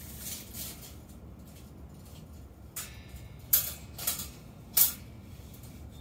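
A steel tape measure being handled and pulled out along a steel frame rail: four short scraping clicks in the second half, the loudest a little past halfway and near the end.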